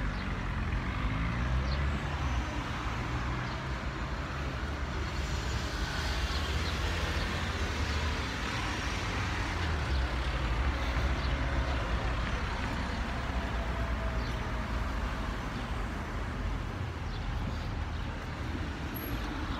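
Steady road traffic noise with a deep rumble.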